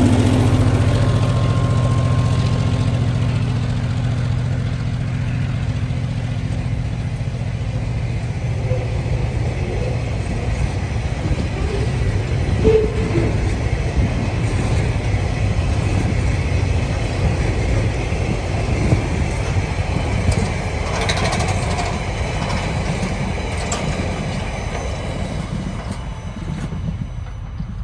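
Diesel freight locomotive's engine passing and fading in the first couple of seconds, then loaded log wagons rolling by with a steady low rumble and wheel clatter on the rails, with occasional squeaks and clicks. The rumble slowly dwindles as the end of the train draws away.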